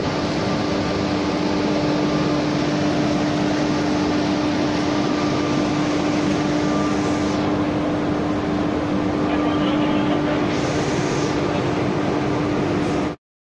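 Cab noise inside an electric locomotive: a steady machinery hum with a constant low tone over a dense rush of noise, cutting off abruptly near the end.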